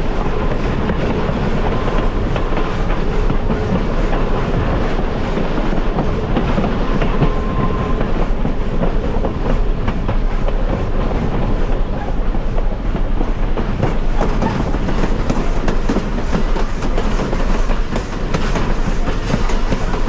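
Railway passenger car rolling along the track behind a steam locomotive: a steady rumble of wheels on rail with scattered clicks over the rail joints.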